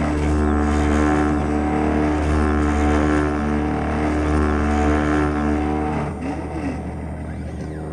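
A CNC router engraving acrylic runs with a steady hum of several held tones and a hiss that swells and fades about once a second. About six seconds in it becomes a little quieter and a short whine rises and falls in pitch.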